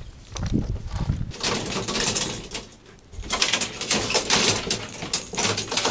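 Close rustling and handling noise, with fabric brushing against the microphone, as gear is pulled from a pickup's bed. It comes in two stretches with a short lull about three seconds in.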